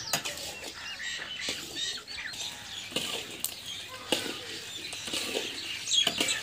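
A metal spatula scraping and knocking irregularly against a metal karahi as crumbled dried colostrum milk is stirred and roasted in ghee, while birds chirp.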